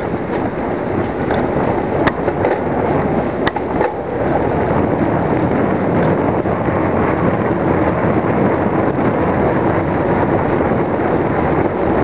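Wind buffeting the microphone of a camera on a moving bicycle: a loud, steady rushing noise. Two short sharp clicks stand out, about two seconds in and again about a second and a half later.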